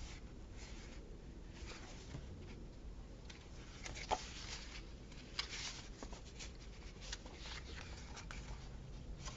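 Faint rustling and scraping of paper sticker sheets and planner pages being handled, with two small sharp taps about four and five and a half seconds in.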